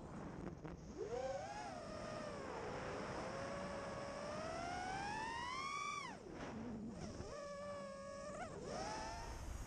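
5-inch FPV quadcopter's brushless motors whining, the pitch rising and falling with the throttle. It makes a long slow climb in pitch, drops suddenly about six seconds in, gives a few short punches near the end and rises again at the close.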